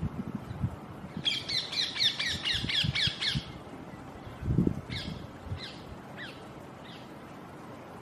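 Rose-ringed parakeet calls. A fast string of shrill, harsh squawks starts about a second in and lasts about two seconds, followed by four single downward-sliding calls spaced apart.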